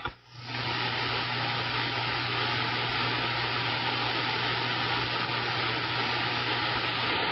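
CB radio receiver hissing with open-channel static after a transmission drops out with a short click. A steady low hum runs under the static and stops shortly before the end.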